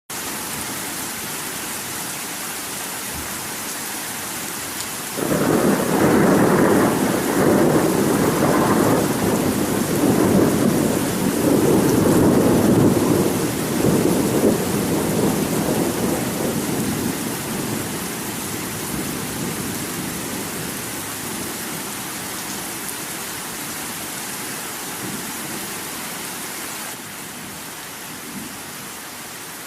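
Steady rain with a long rolling thunder rumble that starts about five seconds in, stays loud for about ten seconds and then slowly dies away under the rain.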